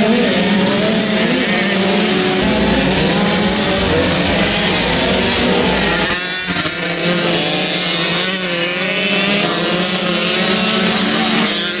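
Several racing motorcycles' engines revving together as a pack goes round the track. Their overlapping pitches rise and fall as the riders open and close the throttles.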